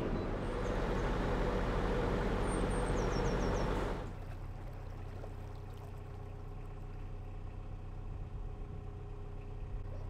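Narrowboat engine running steadily under way, with a rushing noise of water and air over it; about four seconds in, the sound drops suddenly to a quieter, steady low hum.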